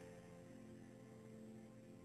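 Near silence with a faint background music score holding soft sustained notes.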